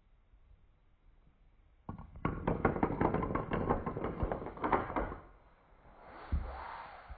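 A line of dominoes toppling one after another: a fast, dense clatter of clicks starting about two seconds in and lasting about three seconds, then a single thump near the end.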